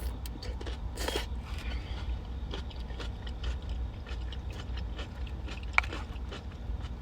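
A person chewing crunchy cucumber salad with small, irregular wet crunches and mouth clicks, one sharper click near the end, over a steady low rumble.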